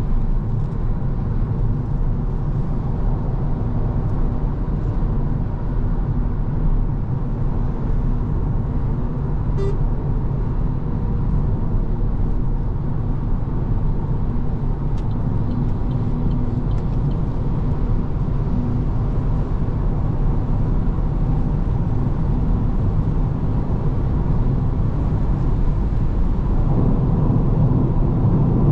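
Cabin noise inside an Opel Corsa-e electric car accelerating on a motorway: steady road and wind noise, growing a little louder near the end as the speed climbs to about 150 km/h.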